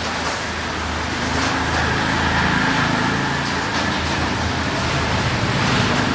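Steady heavy rain, with a low droning hum rising under it through the middle.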